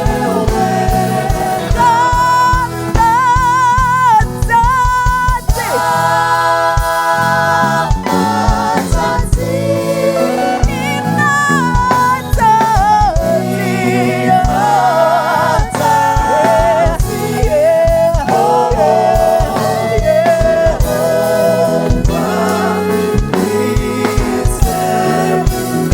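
Gospel worship music: singers with a band, over a steady drumbeat.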